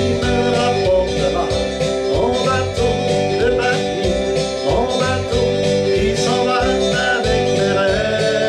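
Country-style music with guitar, and a man singing a French song over it.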